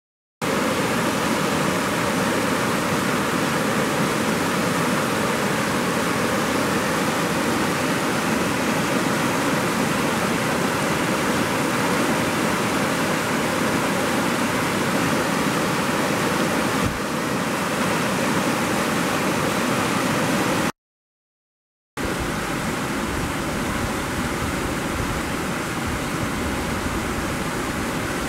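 Fast floodwater rushing across a flooded low-water road crossing and pouring over the road's downstream edge: a steady, loud roar of churning water. It breaks off for about a second roughly three-quarters of the way through, then resumes with a deeper rumble underneath.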